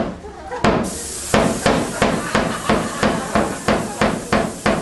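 Live percussion: sharp, hard strikes that settle into an even beat of about three a second, over a steady hiss that starts about a second in.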